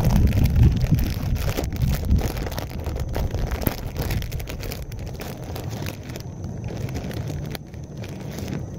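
Strong wind buffeting the microphone: a gusty low rumble with scattered small clicks, easing off over the last few seconds.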